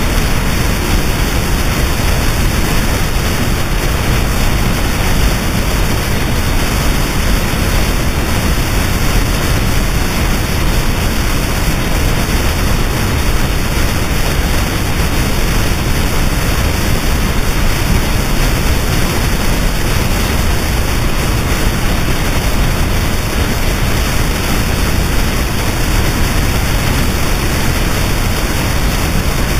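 Noise music: a loud, unchanging wall of static, a dense hiss and rumble spread evenly from deep bass to high treble with no rhythm, pitch or breaks.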